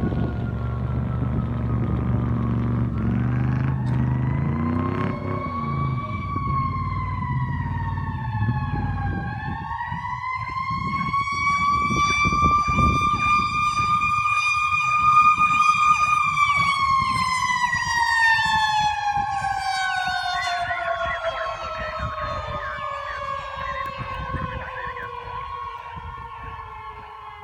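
Fire engine siren wailing as the truck responds to a call. Its pitch climbs, dips, climbs to a held high tone, then slides slowly down through the last ten seconds as it fades. A heavy truck engine rumbles underneath in the first few seconds.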